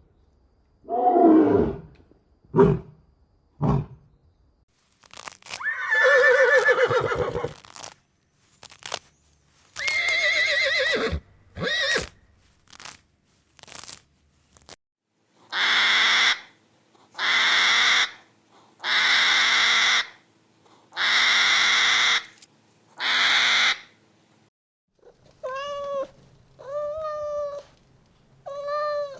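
A series of different animal calls one after another: several short falling calls, then a long call, then five long breathy, hiss-like bursts of about a second each. It ends with a cat meowing three times.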